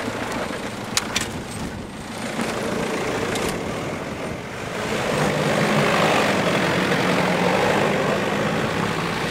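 Jeep Cherokee's engine running as the SUV drives off-road over dirt, getting louder from about five seconds in as it passes close. A couple of sharp clicks about a second in.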